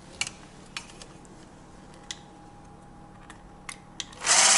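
Braun electric hand blender with a whisk attachment running steadily, whipping sour-cream cream in a stainless steel pot, with scattered clicks of the whisk against the pot. A loud rush of noise comes in the last half-second.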